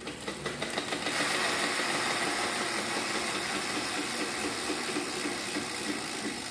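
Spinning rear bicycle wheel with its chain and cassette running, and a scraping rub that comes and goes about three times a second as the rim goes round. The dented rim has bulges that strike the brake pad on each turn.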